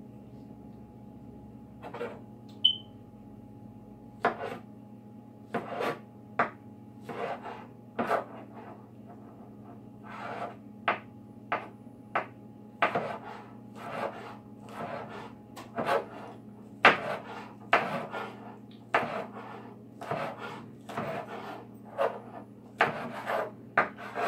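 Kitchen knife slicing onion: a run of short scraping cuts, irregularly spaced and roughly one a second, beginning about two seconds in and coming faster near the end.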